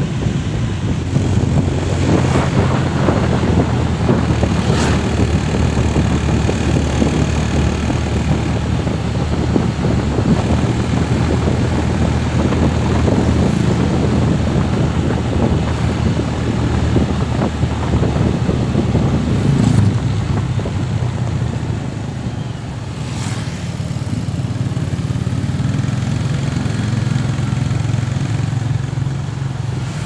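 Motorcycle engine running steadily while riding along a road, a constant low hum under the noise of travel.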